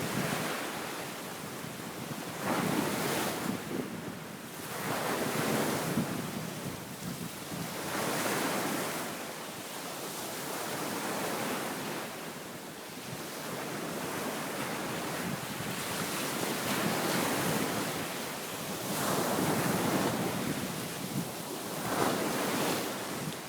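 Wind-driven waves breaking and washing on a sandy beach ahead of an approaching typhoon, swelling and ebbing every few seconds, with strong east wind buffeting the microphone.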